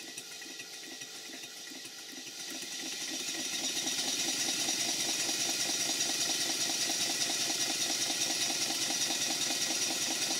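Large two-cylinder model steam engine running on compressed air, its crankshaft and big ends turning with a fast, even, rhythmic clatter. It grows louder over the first few seconds, then runs steadily, with its bottom-end bearings freshly tightened.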